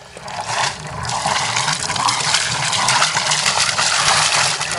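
Water gushing steadily from an outlet in a sailboat's hull and splashing into the sea, with the boat's inboard engine running underneath just after start-up. The flow is the engine's cooling water coming out with the exhaust.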